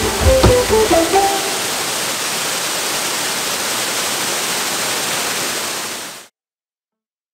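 Steady rush of a waterfall, with the last notes of background music in about the first second. The water sound fades and cuts off near the end.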